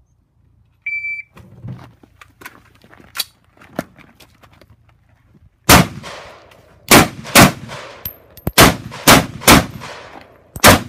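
An electronic shot timer gives one short beep about a second in, the start signal after "stand by". After a few seconds of faint knocks and clicks, a rifle fires about eight loud shots in quick, uneven succession from about six seconds in, each shot echoing.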